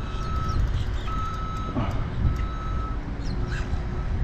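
Electronic beeper sounding a steady high tone in pulses about half a second long, repeating about once a second, over a low rumble of wind and water.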